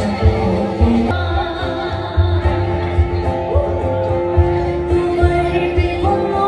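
Background music with singing over a pulsing bass beat; the music changes about a second in.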